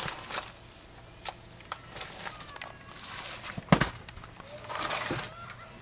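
Crinkling, crackling handling noise with scattered light taps, and one sharper knock about three and a half seconds in.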